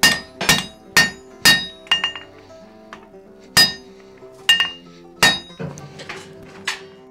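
Blacksmith's hand hammer striking a red-hot wrought tomahawk head on an anvil, each blow with a bright metallic ring. Four quick blows come about two a second, then after a pause three more, then a few lighter taps.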